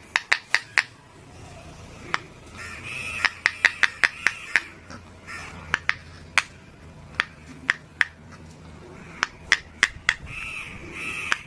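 Silicone pop-it fidget toy bubbles being pressed through one by one, each giving a sharp pop. There is a quick run of about five pops near the start, then single pops scattered irregularly.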